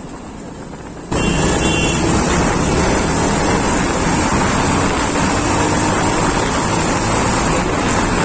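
Jawa motorcycle accelerating hard at full throttle to show its pickup. The engine sound is mixed with heavy wind rush on the microphone, which jumps up abruptly about a second in and stays loud.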